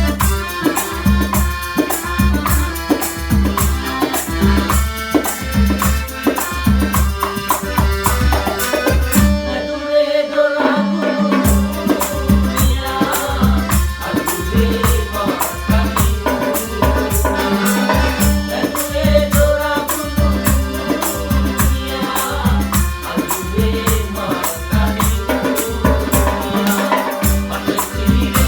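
Sinhala calypso-style band music with a steady low beat and rattling percussion. The bass and the highest sounds drop out for a moment about ten seconds in, then the full band comes back.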